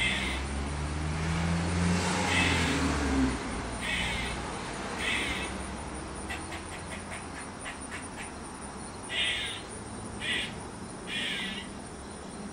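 Eastern gray squirrel giving its alarm calls: seven short, harsh caw-like calls, with a quick run of clucking clicks in the middle. A low rumble lies under the first few seconds.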